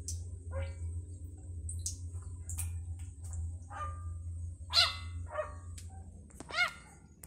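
About five short, yelping animal cries, each rising and falling in pitch, the loudest about five seconds in, with a few sharp clicks between them.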